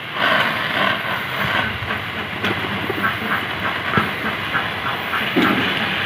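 A water sprayer hisses out a steady mist over a bathing green pigeon. A run of faint quick ticks comes in the second half.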